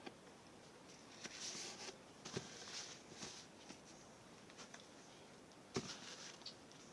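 Quiet room with a few faint sharp clicks and brief soft rustles, the loudest click near the end.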